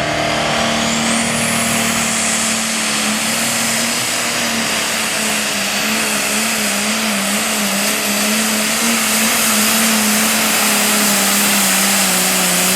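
Super Farm pulling tractor's turbocharged diesel running hard at high revs under load, its engine note wavering slightly. A high turbo whine climbs in the first second and a half, then holds.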